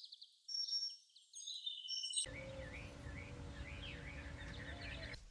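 Small birds chirping faintly. About two seconds in, the background switches to a steadier outdoor noise with a faint low hum, and birds keep calling in short rising-and-falling notes.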